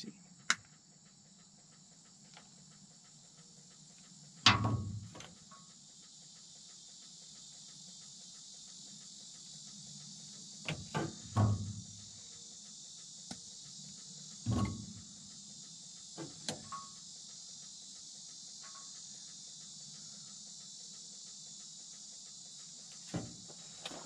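Insects chirring steadily at a high pitch, with scattered sharp clicks and a few dull knocks from diagonal cutters snipping open a wiring harness loom and the wires being handled. The loudest knock comes about four and a half seconds in.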